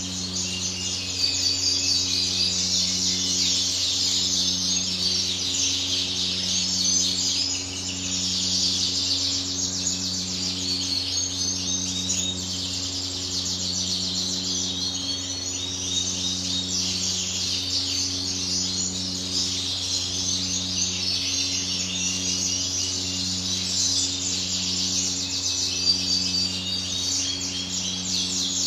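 Many caged canaries chirping and twittering, a dense overlapping chatter of quick high chirps. A steady low mechanical hum runs underneath, with a tone that pulses on and off about every second and a half.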